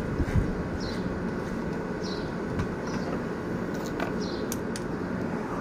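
Electric hair clipper buzzing steadily, with short high chirps recurring about once a second and a few light clicks about four seconds in.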